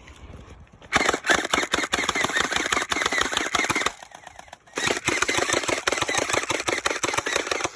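Gel ball blaster firing on full auto: two long bursts of rapid clicking, the first starting about a second in and the second after a short break just past halfway.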